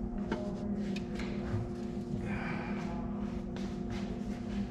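A person's breath as he handles heavy car batteries, with a sharp exhale a little past halfway and a few light knocks of the batteries being shifted in their tray, over a steady low hum.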